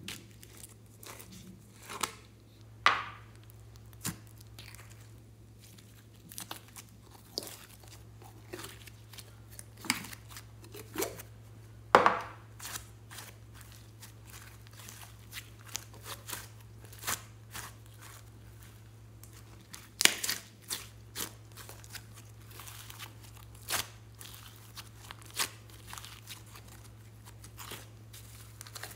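Hands stretching, pulling and folding glossy glitter slime: irregular sticky crackles, pops and tearing sounds, with a few louder snaps.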